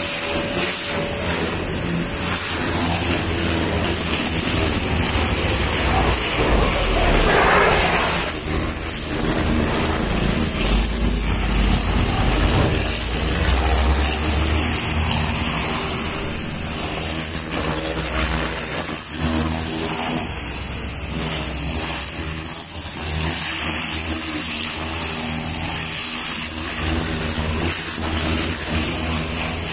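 Pressure washer running steadily: its motor hums under the hiss of the water jet hitting a car's bumper and the wet ground. The hiss surges briefly about seven seconds in.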